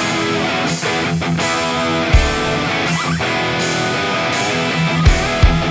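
Background rock music with distorted electric guitar and drums at a steady beat.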